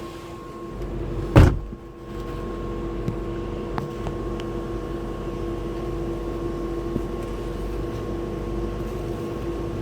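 Air conditioner condenser fan humming steadily, a constant hum of a few fixed tones over a low rumble. One loud thump about a second and a half in.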